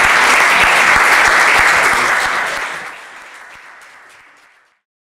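Audience applauding, a dense clapping that holds steady for about two seconds and then fades away to silence.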